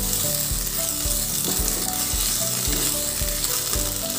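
Onion, tomato and ginger-garlic paste sizzling in hot oil in a non-stick kadai while a wooden spatula stirs the masala, with a steady hiss throughout. Background music with a regular low beat plays underneath.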